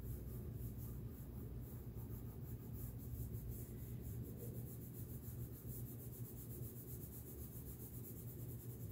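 Wax crayon rubbing across paper in repeated short arcing strokes, a faint scratchy sound, over a low steady hum.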